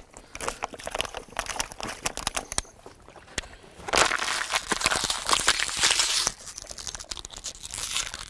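Plastic water bottle crinkling and crackling as it is handled to give a thirsty dog water, with scattered sharp crackles and a denser spell of crinkling from about four to six seconds in.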